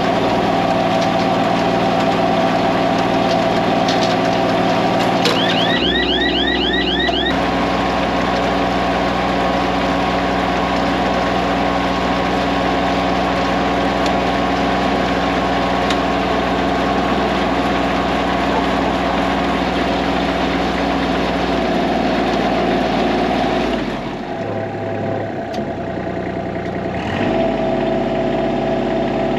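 Diesel tractor engine running steadily under load in the hay field. Its pitch shifts about six seconds in, with a quick run of high rising squeaks, and it dips quieter for a few seconds near the end.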